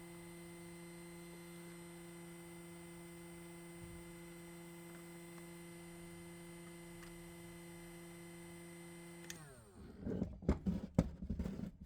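DeWalt DCE530N 18V cordless heat gun running with a steady whine. About nine seconds in it is switched off and the whine falls in pitch as it winds down. A few knocks and clicks of handling follow.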